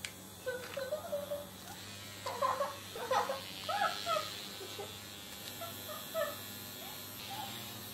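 A woman's short, high-pitched squealing giggles come in clusters: ticklish laughter as the small vibrators taped to her bare soles run. Under it there is a low, steady electric buzz.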